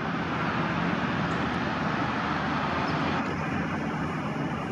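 Steady road traffic noise: a constant wash of passing cars with no single vehicle standing out.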